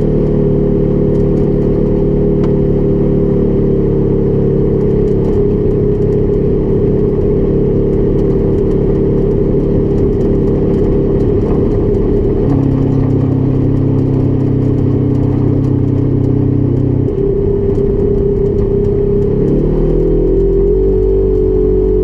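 Polaris RZR XP 1000 UTV's twin-cylinder engine running under way at a fairly steady pitch that shifts twice, then rises as it speeds up near the end.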